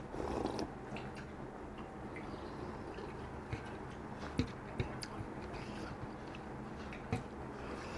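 A person eating with their hands, mouth close to the microphone. There is a short sip from a bowl of soup right at the start, then chewing with scattered small clicks and lip smacks.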